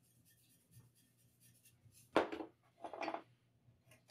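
A seasoning shaker shaken over a raw turkey to re-sprinkle rub. Faint light rattles come first, then two short, louder shakes about two and three seconds in.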